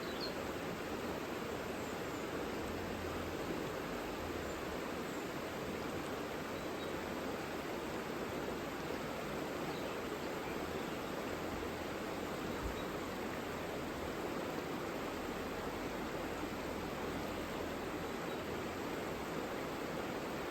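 The Savica, a mountain river, rushing steadily with an even, unchanging wash of water noise. A few faint high bird chirps come through near the start.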